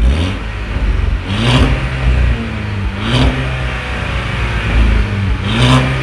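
2014 Volkswagen GTI's turbocharged 2.0 TSI four-cylinder revved through an exhaust with an aftermarket Unitronic downpipe and high-flow cat, on the stock cat-back. The engine pitch rises and falls three times, about two seconds apart, between idle.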